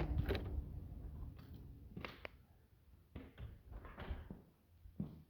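Footsteps with a few scattered knocks and clunks, the knocks irregular at first and settling into a steadier walking rhythm near the end.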